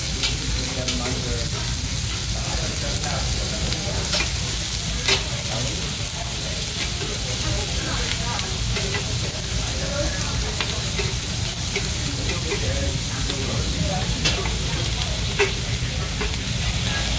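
Raw beef sizzling on a hot Korean barbecue tabletop grill, a steady hiss broken by occasional light clicks, over a steady low hum.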